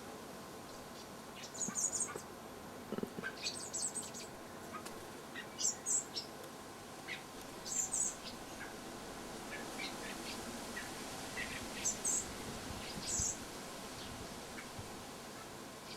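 A garden bird chirping: short, very high-pitched chirps in about eight quick clusters, a second or two apart.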